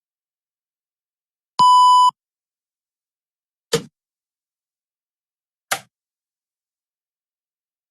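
Electronic timer alarm sound effects: a single steady half-second beep about one and a half seconds in, then two short sharp clicks about two seconds apart.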